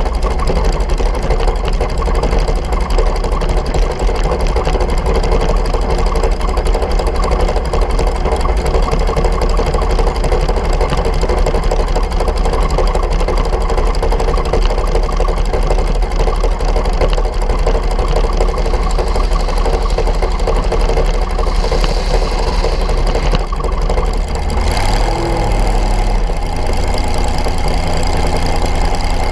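Dragster's engine idling loud and steady, heard close up from the car itself. Near the end its pitch briefly rises, then settles to a different steady note as the car starts to roll.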